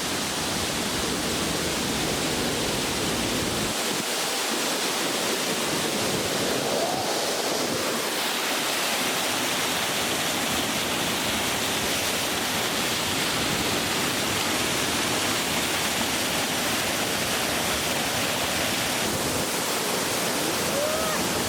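Aira Force waterfall's steady, loud rushing roar of falling water.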